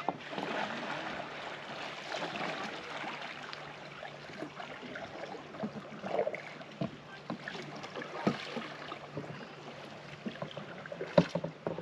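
Loch-shore ambience as canoes paddle past: a steady wash of rippling water and breeze, with scattered short knocks, the sharpest near the end.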